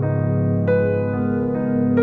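Background music: electric piano playing sustained chords, with new notes coming in about two thirds of a second in and again near the end.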